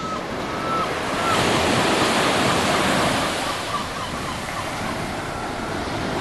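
Sea surf washing up onto a sandy beach: a steady rush of breaking waves that swells about a second in.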